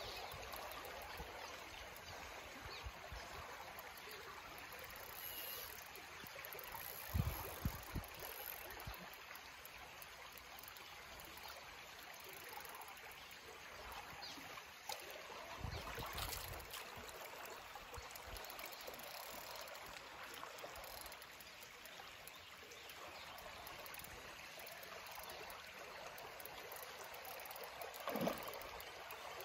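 Creek water flowing steadily with a soft trickle. A couple of dull low thumps come about seven and sixteen seconds in.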